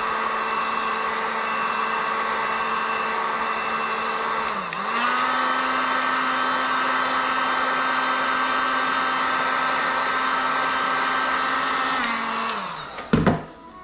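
Handheld hot-air blower running steadily with a motor hum, heating a phone screen's edge to soften the display adhesive. Its pitch dips briefly and recovers about a third of the way in, then it winds down with a falling pitch near the end, followed by a short knock.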